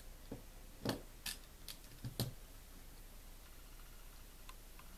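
Small clicks and taps of a Phillips screwdriver and the metal parts of a Stihl MS250 chainsaw carburetor being handled, about half a dozen in the first two and a half seconds.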